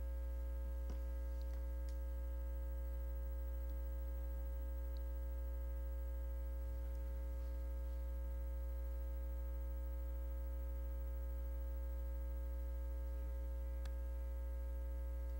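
Steady electrical mains hum: a low buzz with a ladder of fainter steady tones above it, and a few faint clicks.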